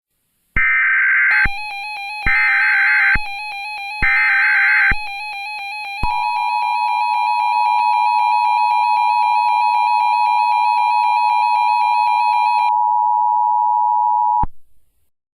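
Emergency Alert System broadcast tones: three short, harsh, screeching data bursts of the SAME header, about a second apart, followed by the long steady attention signal that cuts off abruptly after about eight seconds. A wavering electronic tone sounds underneath the bursts and most of the attention signal.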